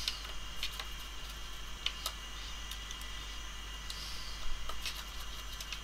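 Scattered small sharp clicks and ticks of a precision screwdriver working tiny screws into an iPhone 4S's metal frame, a few at irregular intervals, over a faint steady high-pitched whine.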